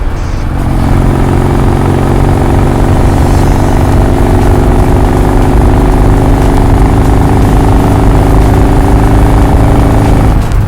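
Vehicle engine pulling steadily through one gear, its pitch climbing slowly. There is a break in the engine note at the start and again near the end, like gear changes.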